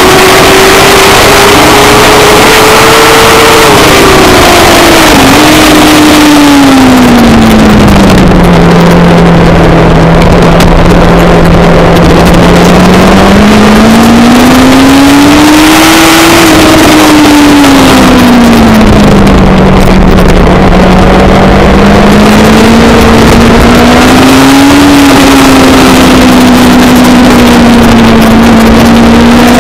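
Race car engine running hard and continuously. Its note climbs and falls slowly several times as the revs change, with a quick drop about five seconds in and a long low stretch in the middle.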